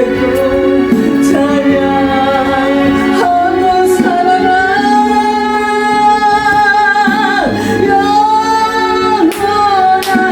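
Solo gospel singing over instrumental accompaniment. A long held note runs from about three seconds in to about seven seconds in.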